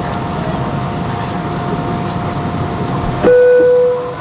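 Steady cabin rumble of an Airbus A320 taxiing on its IAE V2500 engines. About three seconds in, a click and then a loud single tone that holds for under a second and fades.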